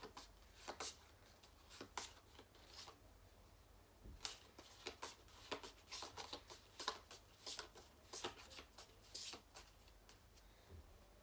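Pokémon trading cards handled and flipped through by hand: faint, irregular soft clicks and rustles of cards sliding over one another.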